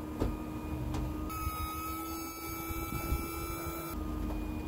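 The bedroom slide-out of a 2006 Montana fifth wheel retracting under its electric motor: a steady motor hum with a higher whine, running smoothly on the newly replaced floor. Part of the whine drops out about four seconds in.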